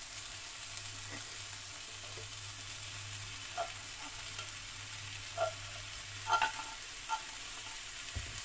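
Diced potatoes, carrots and onion sizzling steadily in olive oil in a frying pan. Canned corned beef is worked out of the tin into the pan, with a few light knocks and clicks of the chopsticks and can in the middle part.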